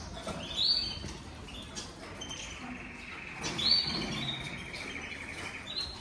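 Caged finches chirping and singing, with quick warbled phrases and a long, even trill from about two seconds in to near the end.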